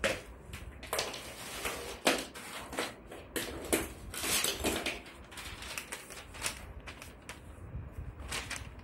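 Plastic bags of small parts crinkling and hard plastic walker pieces clicking and clattering on a wooden floor as they are handled, with the rustle of a paper manual near the end. The crackling comes in irregular bursts, busiest around the middle.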